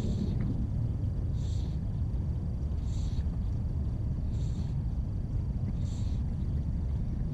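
Steady low rumble of wind buffeting the microphone. Over it, a short high raspy call repeats evenly about every one and a half seconds.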